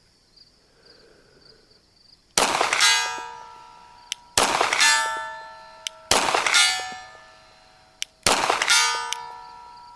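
Four 9mm Glock 34 pistol shots about two seconds apart, each followed by a steel target ringing and fading over a second or so: hits on steel at about 100 yards.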